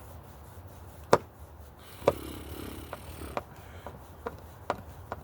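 Sharp clicks and taps of a screwdriver working a screw on a receptacle cover: three louder clicks about a second apart, then several lighter ticks.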